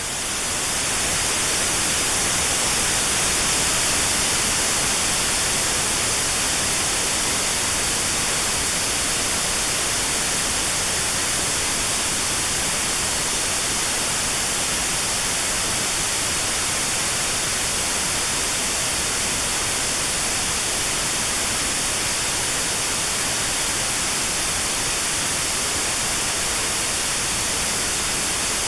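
Steady white noise with a narrow band around 4 kHz filtered out, as used for notched tinnitus sound therapy; it fades in over the first second or two, then holds level.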